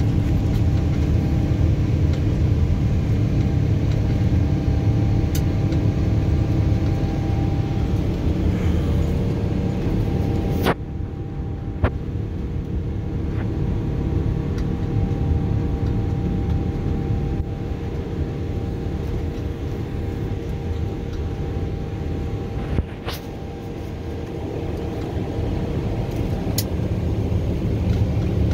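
Steady cabin noise of a jet airliner climbing after takeoff: a loud, even rumble of engines and airflow with a faint steady hum. The level steps down slightly about eleven seconds in and again around twenty-three seconds, with a few faint clicks.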